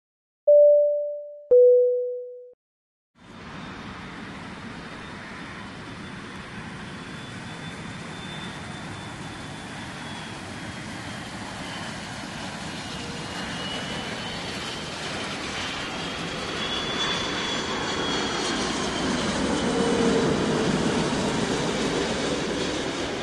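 A short two-note chime, one tone then a lower one, within the first three seconds. Then an Airbus A330-300 jet airliner on landing approach flies over: engine noise with a high fan whine that builds steadily to its loudest as the aircraft passes close by near the end, then eases a little.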